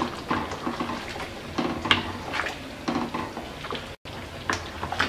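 A spoon stirring a thick, simmering curry of baby potatoes and boiled eggs in a pan, with irregular scrapes and knocks against the pan and wet sloshing of the gravy.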